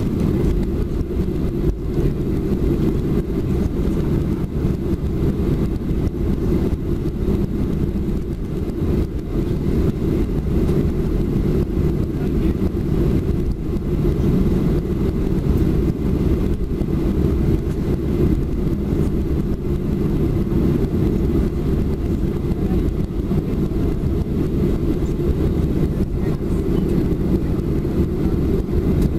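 Boeing 737-400's CFM56-3 turbofan engines at taxi power, heard from inside the cabin over the wing as a steady low rumble while the airliner taxis.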